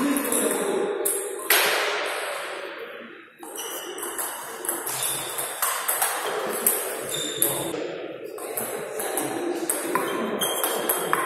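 Celluloid-type table tennis ball clicking back and forth off rubber rackets and the table in a fast rally, echoing in a hall. About a second and a half in there is a louder rush of noise that fades over about two seconds.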